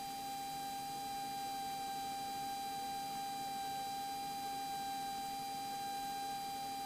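Steady electronic whine in the cockpit headset-intercom audio: one unchanging high tone with fainter overtones over a low hiss, with no engine sound coming through.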